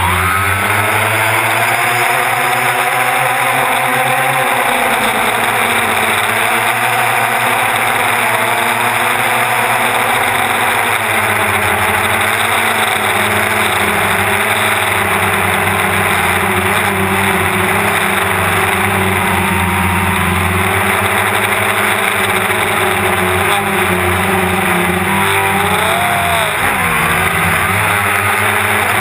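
Electric motors and propellers of a DJI Phantom quadcopter buzzing in flight, heard from the camera mounted on the drone. The pitch drifts up and down as the throttle changes, over a steady hiss.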